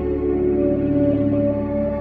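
Background ambient music with sustained, ringing tones.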